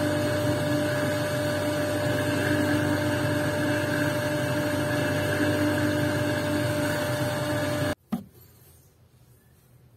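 Electric motor of a lapidary polishing wheel running with a steady hum and whir, cutting off abruptly about eight seconds in, then a single short click.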